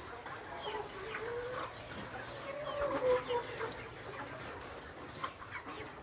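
Caged brown laying hens clucking, with one long drawn-out hen call from about one to three and a half seconds in and a few short higher chirps.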